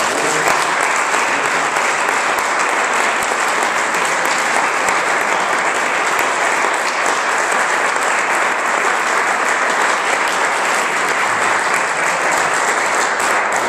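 Audience applauding steadily: a large crowd's dense clapping.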